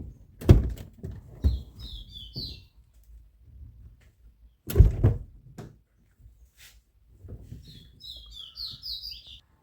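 Small birds chirping in two short runs of quick, falling chirps. Two dull thumps stand out, one about half a second in and one about five seconds in, the loudest sounds.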